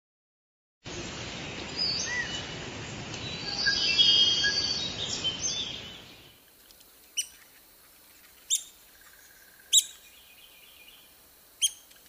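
For the first few seconds, an intro of assorted bird whistles over a steady rushing noise. Then a red-cockaded woodpecker gives four short, sharp calls, one every second or two.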